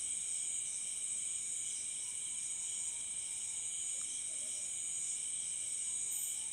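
A night chorus of crickets: a steady, high-pitched trilling at several pitches at once, unbroken throughout.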